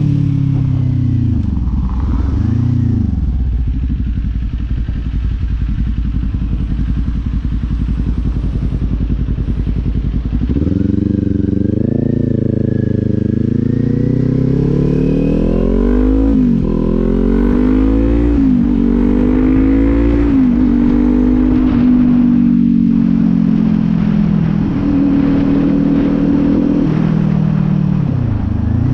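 Kawasaki Z400's parallel-twin engine under way: running low and steady at first, then about ten seconds in accelerating through the gears, its pitch climbing and dropping back at each of several upshifts. It then holds a steady cruise, with a brief dip near the end.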